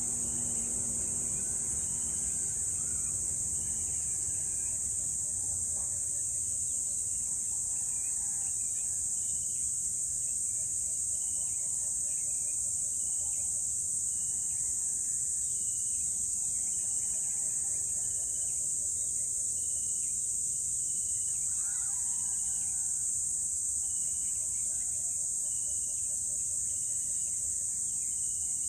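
Steady, high-pitched insect chorus droning without a break, with faint short bird calls repeating in the background.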